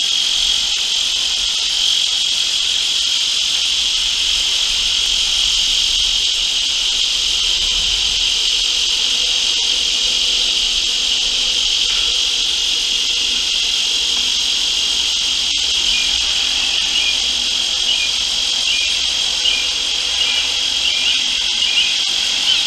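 Steady chorus of insects, a dense high-pitched drone that holds level throughout, with faint short chirps in the last few seconds.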